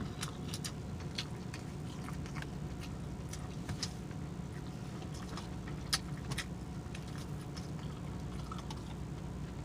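Someone quietly chewing a mouthful of crepe: scattered soft, wet mouth clicks and smacks over a steady low hum.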